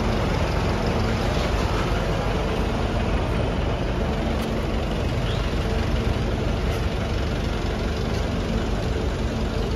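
Large vehicle engine idling steadily with a continuous low rumble.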